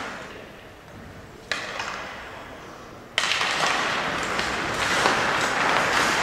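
Ice hockey game sound: skates on the ice and scattered sharp clacks of sticks and puck, with rink echo. The sound fades away over the first second and a half, then comes back in two abrupt jumps, at about one and a half and about three seconds in.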